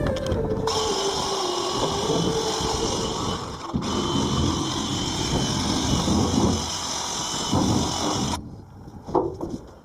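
A power tool running steadily, stopping abruptly about eight seconds in.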